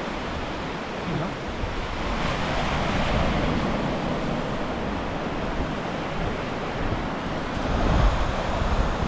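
Surf washing onto a sandy beach, swelling about two seconds in and again near the end, with wind rumbling on the microphone.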